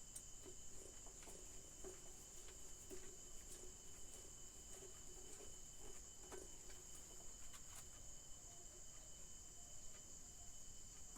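Crickets chirring steadily in the background, with scattered faint clicks and taps as an electric kettle's housing is screwed together.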